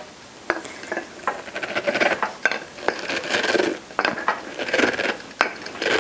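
Wooden sauerkraut tamper mashing shredded red cabbage down into a glass clamp-top jar: repeated irregular mashing strokes with sharp knocks between them. The mashing presses brine out of the cabbage.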